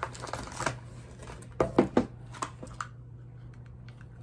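Packaging of a phone screen-protector kit being handled: a brief rustle, then a quick run of sharp taps and clicks a little under two seconds in, with a couple of lighter ones after.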